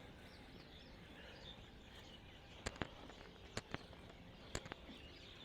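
Faint birds chirping over a quiet outdoor background hiss, with a few sharp clicks in quick pairs in the middle.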